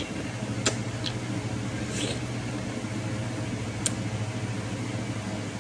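Short slurps and lip smacks as a cooked oyster and its juice are sucked from the shell, four brief sounds over a steady low hum.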